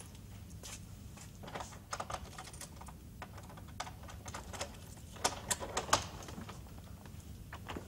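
A string of light, irregular clicks and knocks, loudest a little past the middle, over a low steady hum.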